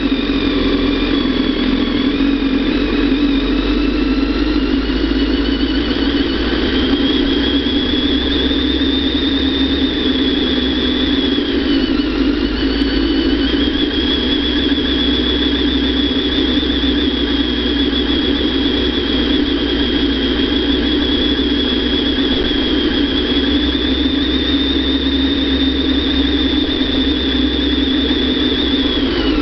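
Kawasaki ZX-10R's inline-four engine running steadily at low load on a slow descent, with a thin high whine that drifts slowly in pitch over it.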